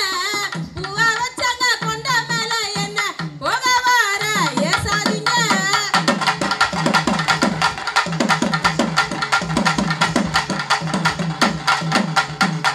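Tamil folk music. A wavering melody plays over barrel-drum (thavil) accompaniment, and about six seconds in it gives way to a fast, dense thavil drum rhythm of rapid strokes.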